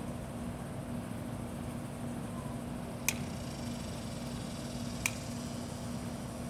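A steady hum with a low tone, broken by two sharp clicks about two seconds apart.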